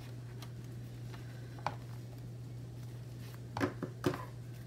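A few faint paper rustles and light clicks as a small cut sticky-note strip is handled over a planner page, mostly about three and a half to four seconds in, over a steady low hum.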